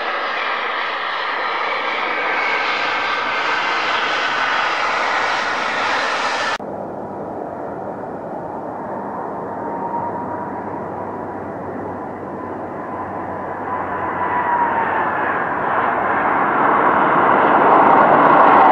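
Jet airliner engines during landings: a Boeing 737 rolling out on the runway with loud engine noise that cuts off abruptly about six seconds in. A second jet, an Airbus A330 on approach, follows; its whine drops in pitch as it passes and touches down, and its engine noise builds near the end.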